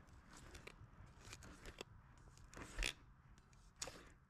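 Faint scraping and ticking of a flexible fillet knife cutting a sheepshead fillet away along the bones, with a couple of louder clicks near the end.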